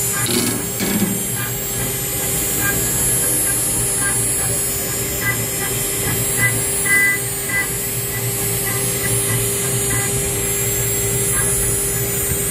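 CNC engraving machine spindle running steadily with a high whine while its fine engraving bit cuts a pattern into a metal coin die under liquid coolant, with a low hum underneath and a few brief louder blips about six to eight seconds in.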